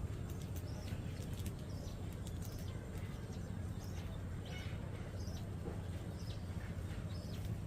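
Budgerigars chirping in short, high calls scattered throughout, with a few sharp clicks in the first second or so, over a steady low rumble.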